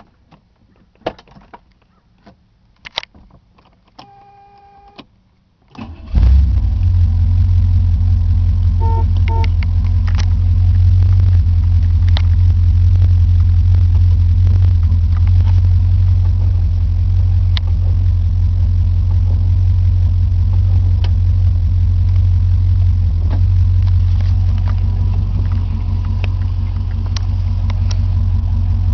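1968 Corvette's 427 big-block V8 catching about six seconds in and then idling steadily, loud and low. Before it there are a few light clicks and a short tone.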